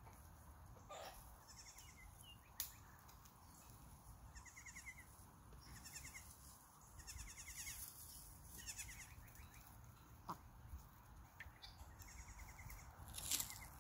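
Goat kids bleating faintly, a few short wavering calls spread across the stretch, with occasional sharp clicks.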